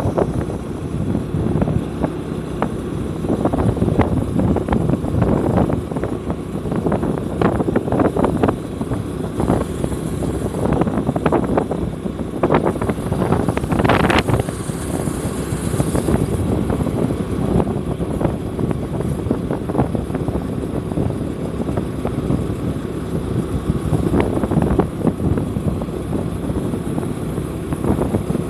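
Vehicle on the move: steady engine and road noise, broken by frequent short crackles and knocks.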